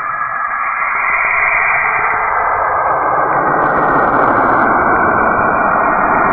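Sonified 'sound of Saturn': emissions recorded by a spacecraft and converted into audio, heard as a dense, steady hiss and rumble. It swells about two seconds in, and a brief higher hiss is added about four seconds in.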